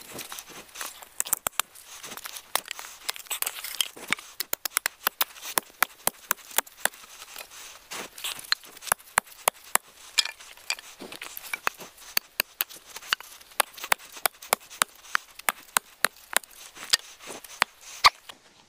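Wooden boards being chopped and split into stakes on a chopping stump: a quick, irregular run of sharp wooden knocks and cracks, several a second.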